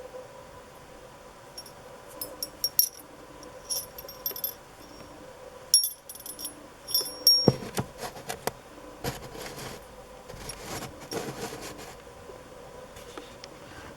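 Small brass figurine call bell shaped like an old flat iron, shaken and rung: a series of short, high-pitched rings and clinks. In the second half these give way to rattling and handling knocks.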